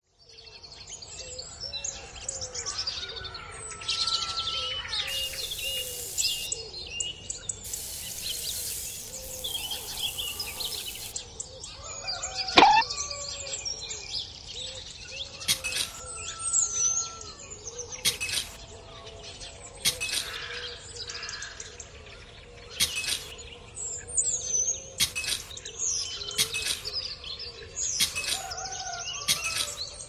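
Birds chirping and singing: many short calls and whistles, with one loud sweeping call about twelve seconds in. High hiss runs for a few seconds from about five to eleven seconds in.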